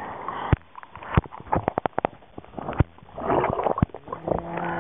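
Seawater sloshing and splashing around a camera at the water's surface, as it dips in and out, with many sharp clicks and knocks of water against it. A short pitched hum comes in near the end.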